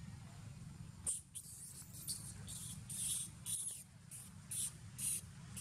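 Footsteps swishing through short grass, a run of short hissy rustles at about two a second starting about a second in, over a steady low rumble.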